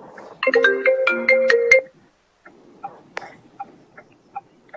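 A phone ringtone: a quick run of short electronic notes stepping up and down, lasting about a second and a half, then stopping.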